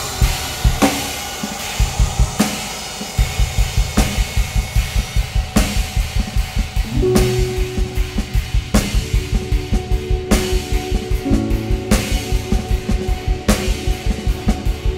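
Drum kit played in a free improvisation. After scattered cymbal and drum strikes, a fast, even bass drum pulse starts about three seconds in and runs under snare, tom and cymbal hits. Held pitched notes join underneath about halfway through.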